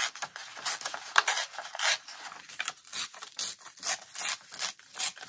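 A printed paper collage sheet being handled, folded and creased by hand: a quick run of short, crisp paper rustles and rubs.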